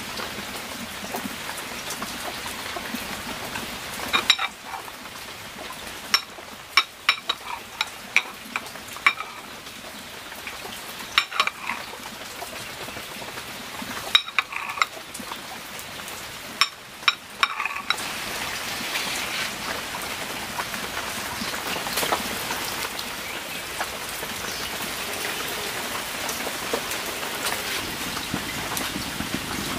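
A steel cleaver cutting a broccoli omelette on a ceramic plate: sharp knocks of the blade against the plate, singly and in small groups, from about four seconds in to about eighteen seconds. Over and after them a steady hiss, louder in the last third.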